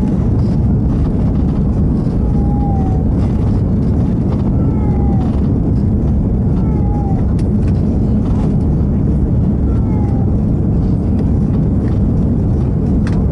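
Steady cabin noise of an Airbus A340-600 in its climb after takeoff: the four engines and the airflow make a loud, even rumble. Over it a cat meows faintly every two to three seconds, short calls that fall in pitch.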